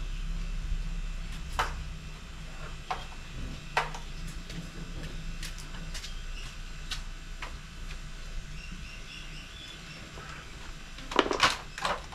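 Scattered light clicks and taps of hands working over a basin, with a burst of sharper knocks and clatter near the end. A low rumble fades over the first few seconds, and faint bird chirps come about two-thirds of the way in.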